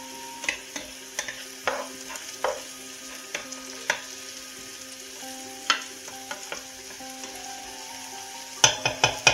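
Diced onions and chicken legs frying in a pan with a steady sizzle while a spatula stirs, scraping and knocking against the pan every half second or so. A quick run of louder knocks comes near the end. The onions are already glassy.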